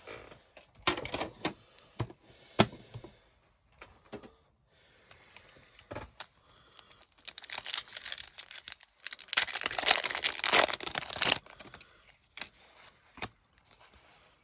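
Foil Pokémon booster pack wrappers crinkling and being torn open. There are a few light rustles and clicks first, then a long stretch of loud crinkling and tearing about seven to eleven seconds in.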